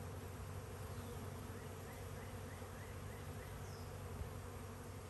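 Honeybees buzzing at a busy hive entrance, a steady drone of many foragers flying in and out, the sign of a strong nectar flow coming in.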